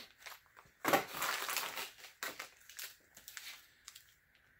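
Plastic hardware bag crinkling as it is handled and opened, loudest about a second in, followed by a few lighter rustles and clicks of small parts.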